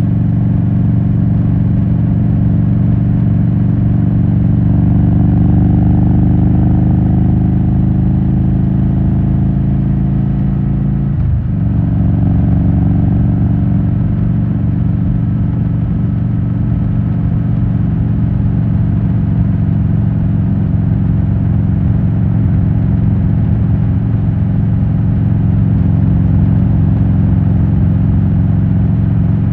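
Harley-Davidson Road King Classic's 96-cubic-inch V-twin with Rush Big Louie mufflers running under way, its pitch climbing slowly, then a brief sharp dip at a gear change about eleven seconds in, after which it runs on steadily.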